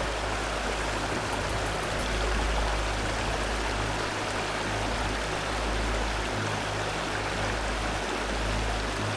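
Wind blowing across the microphone: a steady rushing noise with a heavy low rumble that swells and drops away in gusts.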